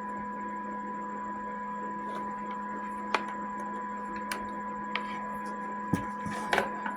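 Electric fan running at a lowered speed, a steady motor hum. A few short clicks, about three seconds in and near the end.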